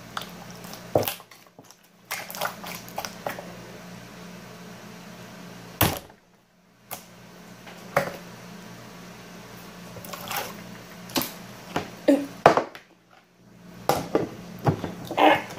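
Hands squishing, stretching and poking sticky slime on a tabletop: irregular wet clicks and pops, with a few sharper slaps, over a steady low hum.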